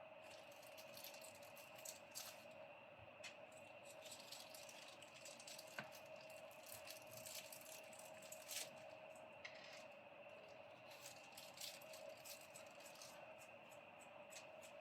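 Faint scattered clicks and light rattling of small screws and metal parts being handled during reassembly of a mini PC.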